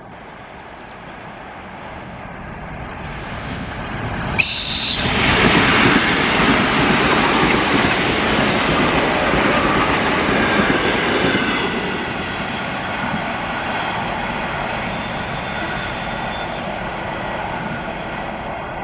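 ED4M electric multiple unit running along the track. Its noise builds as it approaches, then jumps sharply about four seconds in as the cars rush past close by at speed, wheels rolling on the rails. After about twelve seconds it eases to a steadier, lower rolling noise.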